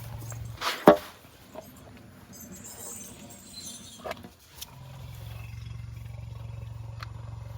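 An animal's vocal call, loud and brief, a little under a second in, with a second, shorter call about four seconds in. Beneath them runs a low, steady rumble that drops out after the first call and returns about five seconds in.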